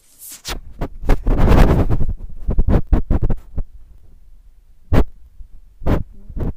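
Handling noise from a phone being moved about by hand: a few seconds of loud rubbing and scraping on the microphone, then a few single sharp knocks.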